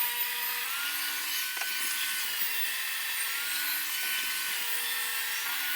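Table saw running and cutting a wooden board, a steady hiss with a faint whine whose tone changes twice.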